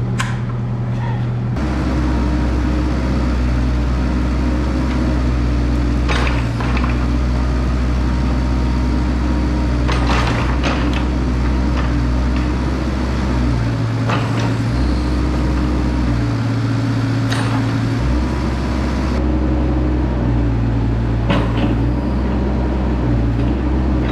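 A vehicle engine running steadily, its low hum shifting abruptly between a lower and a higher pitch several times, with a few short clicks.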